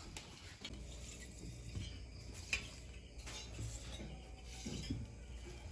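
Faint, scattered clinks and taps of fluted tin molds lined with banana leaves being handled and set down on a table, over a low steady hum that starts about a second in.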